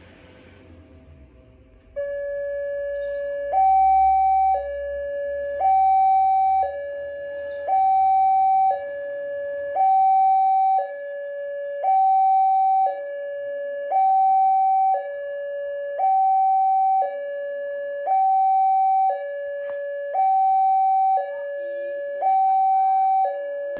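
Railway level-crossing warning alarm starting about two seconds in: an electronic two-tone chime alternating between a lower and a higher note, about one note a second, signalling that a train is approaching.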